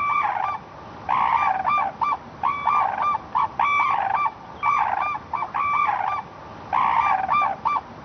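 A pair of red-crowned cranes calling in duet: the male's loud cry answered by the female's calls, the sequence repeating about once a second.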